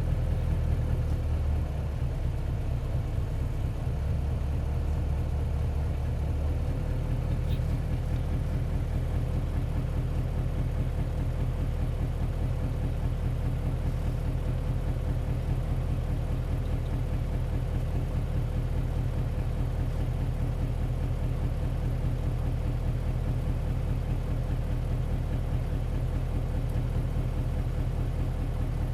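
Isuzu Cubic city bus's 8PE1-S V8 diesel engine heard from inside the bus, running with a steady low rumble at an even pitch, without revving up or down.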